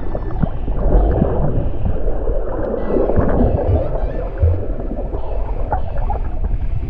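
Muffled underwater sound picked up by a camera held below the surface: a steady rush of moving water with low rumbling and gurgling.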